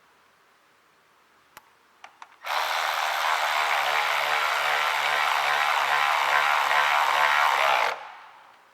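A few light clicks, then a power drill-driver running steadily for about five seconds and winding down, driving the factory mounting bolt that holds the shifter sleeve to the MT82 transmission.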